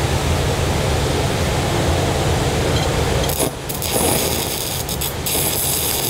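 Steady rushing background noise, then a little over three seconds in a stick-welding arc from a 1/8-inch 6010 electrode is struck, catching after a couple of brief breaks and then crackling steadily as it runs down a vertical 10-gauge steel plate at about 90 amps.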